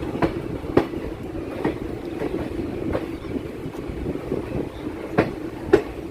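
Chennai MRTS electric train running along the track, with a steady rumble and sharp wheel clicks over rail joints coming at irregular intervals.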